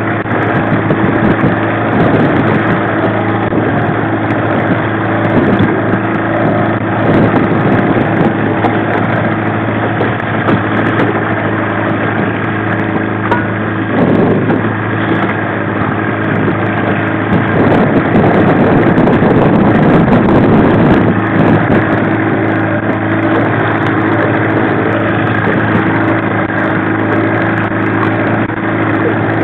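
A 1995 15 hp Mariner two-stroke outboard running steadily at low trolling speed, a constant low drone, with a louder rush of noise about two-thirds of the way through.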